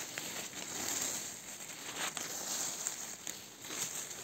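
Rustling and light crackling of dry twigs and needles on a forest floor, with a few soft clicks, as someone moves through tangled undergrowth.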